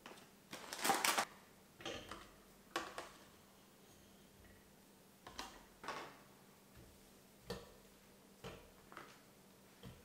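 Fruit being set piece by piece into a metal wire fruit basket: scattered soft knocks and taps, with the loudest short cluster about a second in.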